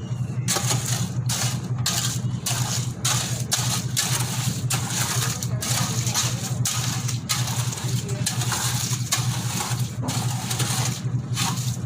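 An engine running steadily with a low hum, overlaid by gritty scraping or rattling noises that repeat about twice a second.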